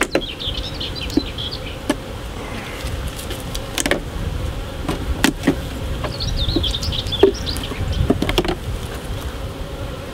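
Honeybees buzzing steadily around an opened hive. Several sharp knocks and clicks come from the wooden hive parts and the hive tool as the crown board is worked loose.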